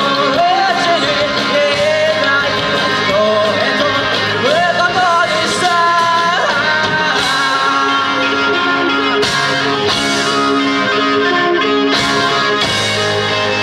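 Live rock band playing electric guitars and drums through a PA, with a lead melody that slides up and down in pitch over the first half.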